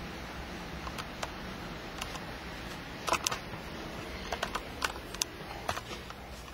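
Irregular light clicks and taps from someone moving with a handheld camcorder, over a steady low hum. The clicks come in small clusters, the loudest about three seconds in.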